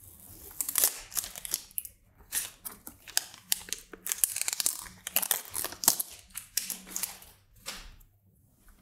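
Protective plastic film being peeled off a clear acrylic sheet, in a run of irregular crackles and tearing rips that falls quiet just before the end.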